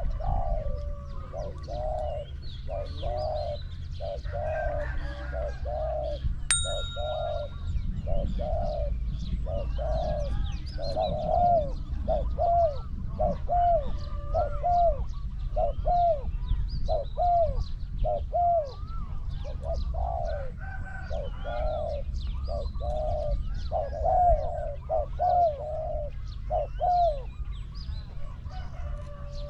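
Spotted doves cooing: a long run of short, low coos, one after another, with small birds chirping higher up behind them and a steady low rumble underneath.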